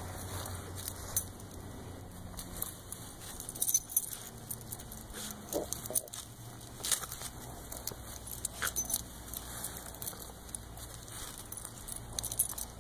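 Metal collar tags and leash clip jingling in irregular clicks, with grass rustling, as a Chinese crested dog rolls and rubs its back on a lawn.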